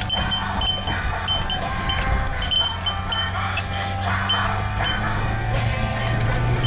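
Small metallic chimes or bell tinkling in short, irregular rings over a steady low hum.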